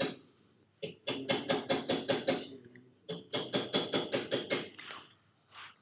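Small hammer tapping a silver bangle on a mandrel, light quick strikes at about six a second, each with a brief metallic ring, in two runs separated by short pauses. The bangle's edge is being tapped and rolled over the mandrel to form an anticlastic bangle.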